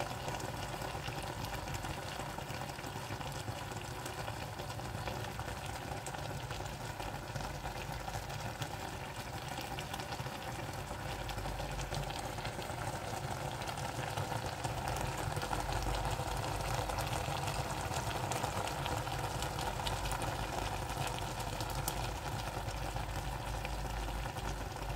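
Pot of ginger chicken simmering, a steady bubbling with fine crackles over a low hum, a little louder in the second half.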